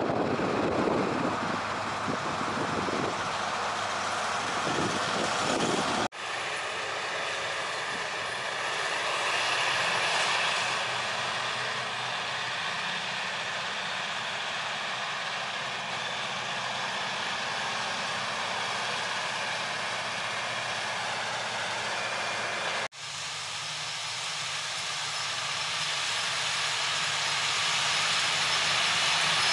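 Diesel engines of large tracked farm tractors working in the field, in three spliced shots that change abruptly about six seconds in and again near the end. First a John Deere 8400T alongside a combine, then a John Deere four-track tractor pulling a disc harrow, then a Challenger MT-series rubber-track tractor pulling a cultivator, which grows louder as it comes closer.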